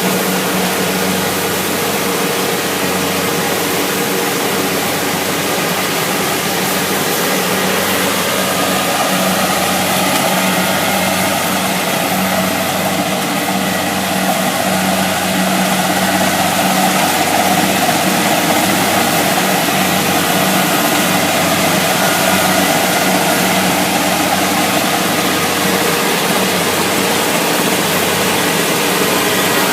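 Kubota DC70 Plus combine harvester running steadily on its diesel engine, with a broad rushing noise that swells about nine seconds in and stays.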